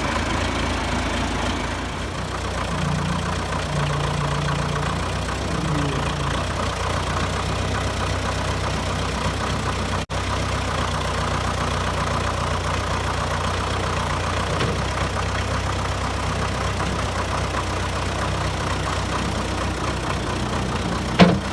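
Case 480C backhoe's four-cylinder diesel engine idling steadily after a boost start, about three months since it last ran. A short sharp sound comes near the end.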